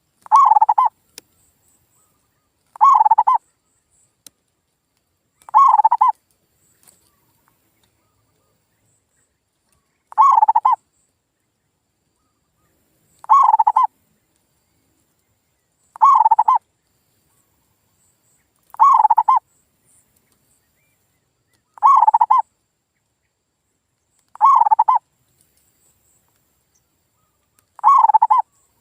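Male zebra dove (perkutut) song: ten short, rolling coos, each under a second, repeated about every three seconds with near silence between, and one longer pause a third of the way through.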